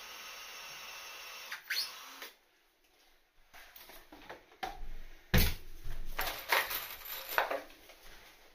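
A power tool whirs steadily and cuts off about a second and a half in. Then come irregular knocks and clatter of hand tools, a cordless drill and timber being handled on a tiled floor among exposed joists, with the sharpest knock about five seconds in.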